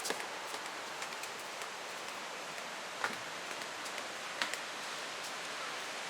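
Steady hiss of running water, with a few faint ticks about three and four and a half seconds in.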